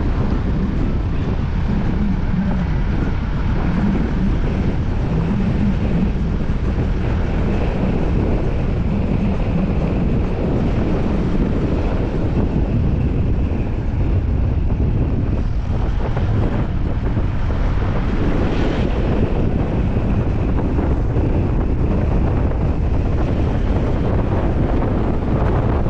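Steady wind rushing over the microphone of a camera mounted outside a moving Chevrolet Tavera, over the low rumble of the car and its tyres on the road.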